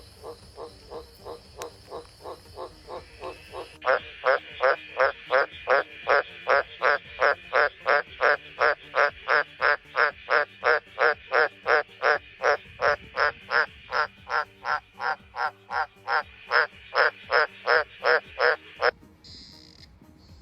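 A frog croaking in a fast, even series of short calls, about two to three a second. For the first four seconds the calls are faint under a steady high-pitched whine; then a much louder run of calls starts and goes on until they stop near the end.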